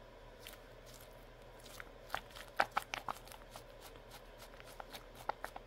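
Faint, scattered clicks and crackles as two Peeps-shaped, goo-filled squishy toys are squeezed and kneaded in the hands: the rubbery skins creak and rub against the fingers. They come irregularly, with a few louder ones in the middle and near the end.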